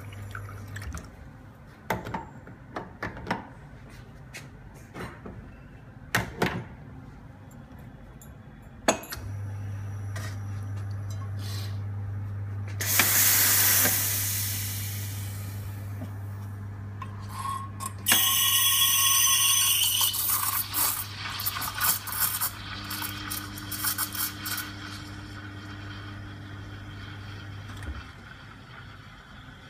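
Espresso machine pump humming steadily while a shot is pulled. It starts after a run of metallic clicks and knocks from handling the portafilter and stops near the end. Over the hum, a short loud blast of steam as the steam wand is purged, then the wand hisses and squeals as it steams milk in a stainless steel pitcher.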